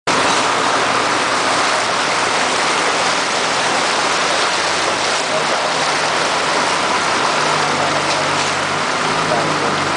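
Floodwater rushing and splashing in a steady wash as a vehicle ploughs through a flooded street, with a low engine hum underneath.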